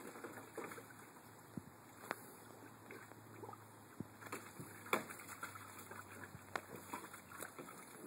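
Water sloshing and splashing in a plastic kiddie pool as a Great Dane puppy and a Doberman wade and paw in it. A run of small irregular splashes is broken by a few sharper knocks, the loudest about five seconds in.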